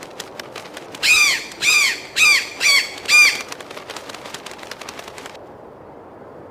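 A macaw squawking: five loud, harsh calls in quick succession, about half a second apart, over a background of quick clicks.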